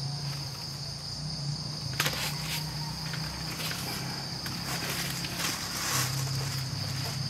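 Evening insect chorus: a steady, unbroken high-pitched chirring. Under it runs a low steady hum, and from about two seconds in come a string of light clicks and knocks, the first the loudest.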